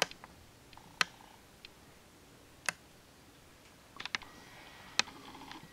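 Marker tip tapping against a board while a letter is written over: a handful of short, sharp clicks at irregular intervals.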